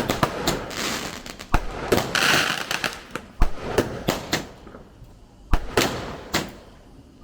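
Backyard consumer firework going off: an irregular string of sharp bangs and cracks with hissing between them.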